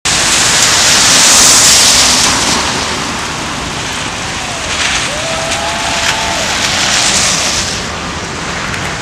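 Car tyres hissing on a rain-soaked road as vehicles pass, loudest in the first two seconds and again about seven seconds in, over steady rain noise.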